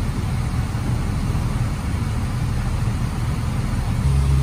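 Fire engine's engine running steadily with a low rumble, heard from beside the truck while it supplies the hose line. Near the end this gives way to a louder, steadier hum.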